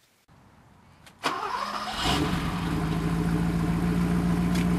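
A power-tool motor driving a 1979 Triumph Spitfire differential through its pinion starts about a second in. It spins up within a second to a steady hum as the ring gear and carrier turn together.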